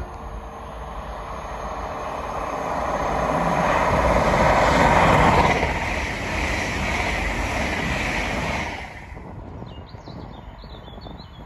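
A train passing the lineside: a rushing rumble of wheels and engine that builds to its loudest about five seconds in, holds, then falls away suddenly about nine seconds in.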